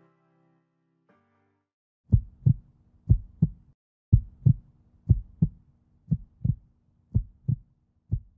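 Background music dies away, then a heartbeat sound effect starts about two seconds in: paired low thumps (lub-dub) repeating about once a second.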